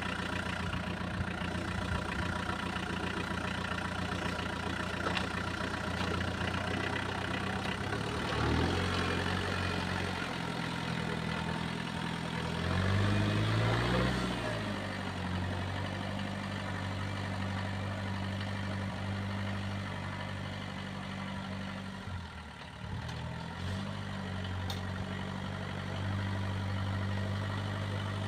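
Homemade small tractor's engine running steadily while pulling a tined cultivator through tilled soil. Its pitch rises twice, about a third of the way in and again near the middle, and drops briefly about three quarters of the way through.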